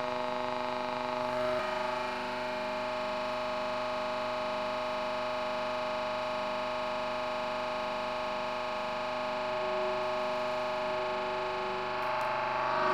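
A 40-ton hydraulic press's pump and motor running with a steady whine of several held tones as the ram descends and squashes a soft figure. The tone shifts about a second and a half in.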